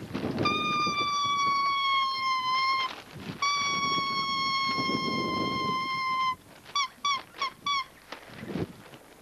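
Whistling at one high pitch: two long held notes, each sagging slightly at its end, then four short quick toots near the end, with a low rough sound underneath in places.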